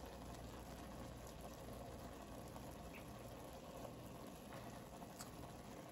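Ramen broth bubbling at a low boil in an electric hot pot, a faint steady hiss, with a couple of faint light clicks.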